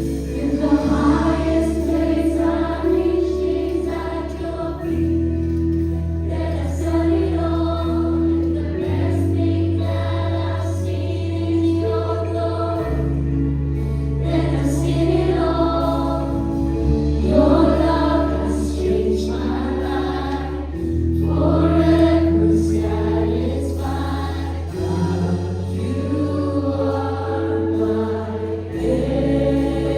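Live worship music: a band holds sustained bass chords that change about every four seconds under a group of voices singing a worship song.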